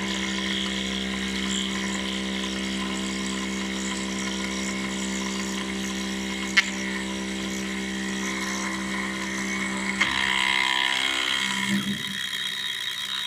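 CNC metal milling machine running, a steady motor hum made of several tones. A sharp click comes about six and a half seconds in. About ten seconds in the low hum dies away and a higher whirring hiss takes over.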